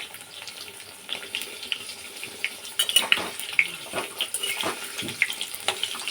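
Eggplant slices frying in hot oil: sizzling with scattered crackles and spits of oil, growing busier about halfway through.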